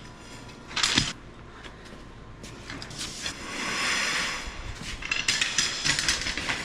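Steel potato-harvester chain being pulled and handled: a single clank about a second in, a scraping rattle around the middle, then a run of quick metal clinks and knocks in the last second and a half.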